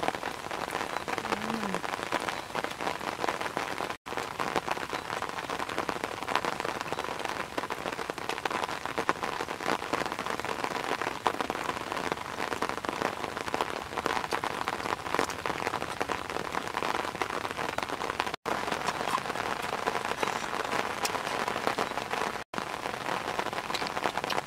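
Steady rain pattering, a dense crackling hiss full of fine ticks, broken by three short silent gaps, about four seconds in and twice near the end.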